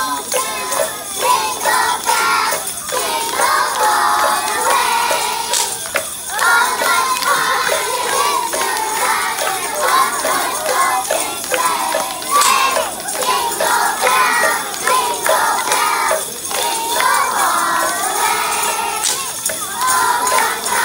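Kindergarten children's choir singing a Christmas song together, with jingle bells shaking along.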